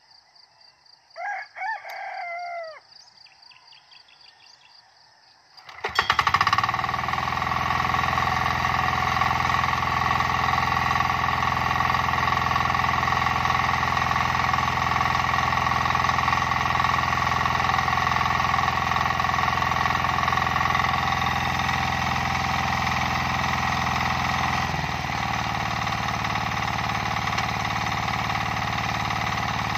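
A rooster crows once about a second in, over a faint steady insect whine. About six seconds in, the hand tractor's single-cylinder engine starts and then runs steadily, its tone dropping slightly about 25 seconds in.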